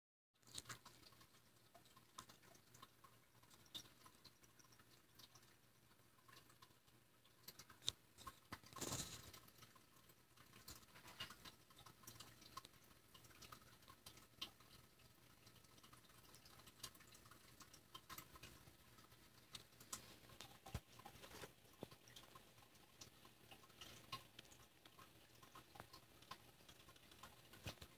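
Faint scattered rustles and clicks of a pet mouse moving about in wood-shaving bedding, with a slightly louder rustle about nine seconds in.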